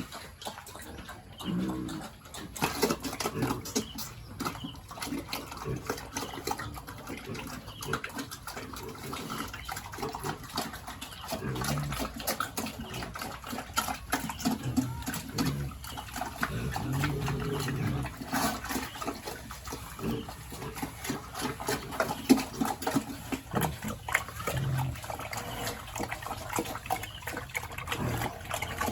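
Pigs grunting, short low grunts scattered throughout, over a constant patter of short wet smacks and clicks.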